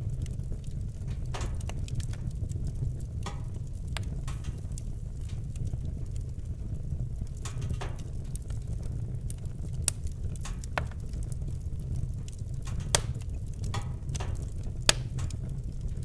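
Fire in a fireplace crackling: scattered sharp crackles and pops over a steady low rumble, with two louder pops near the end.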